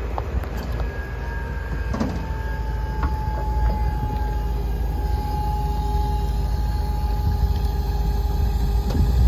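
Flatbed pickup truck's engine running at idle: a steady low rumble with a faint high whine over it.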